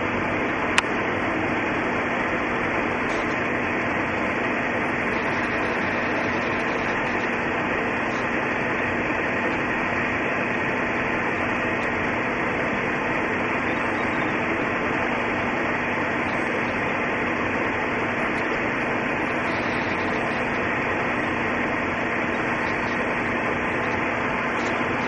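Steady, even hiss with a faint constant hum under it, unchanging throughout; a single sharp click about a second in.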